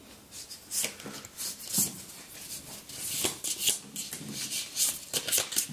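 Playing cards being handled at the table: a run of short, irregular crisp rustles and flicks.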